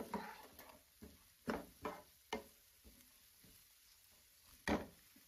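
Wooden spatula stirring diced carrots and onions in a pan: a series of soft scrapes and taps in the first couple of seconds, then one louder scrape near the end.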